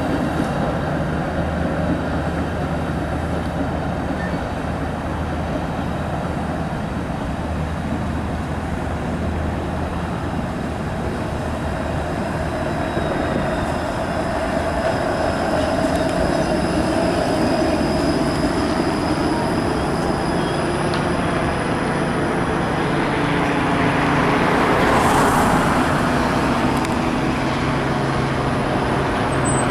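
TTC Flexity Outlook articulated streetcar approaching on its street track and passing close by, its rolling noise swelling to its loudest about 25 seconds in, over steady street traffic noise.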